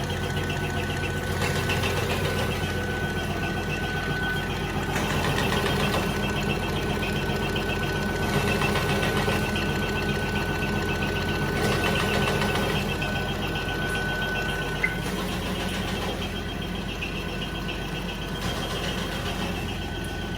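Garment label cutting machine running steadily, with a fast, even chopping of its cutter over the motor hum and a thin steady whine. A single sharp click comes about fifteen seconds in.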